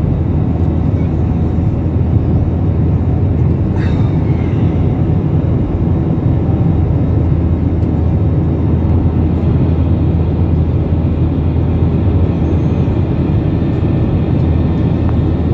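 Airbus A321 jet engines and airflow heard from inside the passenger cabin during the climb after takeoff: a steady low rumble.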